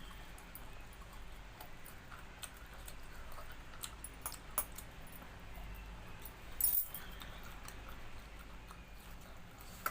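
A person eating a meal of rice and dal: faint chewing and scattered small clicks and taps, with one brief louder clatter about seven seconds in.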